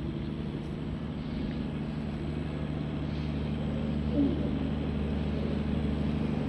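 Steady low hum with faint room noise and no voice.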